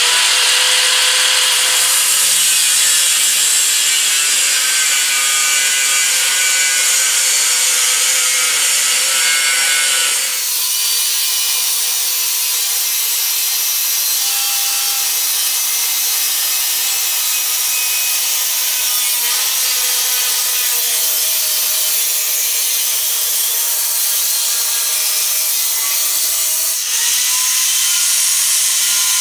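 Angle grinder with a cut-off wheel running at speed and cutting through thin 16-gauge hot-rolled steel sheet: a steady, loud, high-pitched grinding. The sound shifts abruptly about ten seconds in and again near the end.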